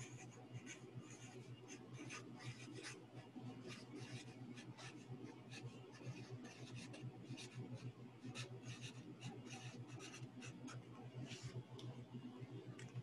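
Felt-tip marker writing on paper: a faint, quick run of short scratchy strokes as words are written out, over a low steady hum.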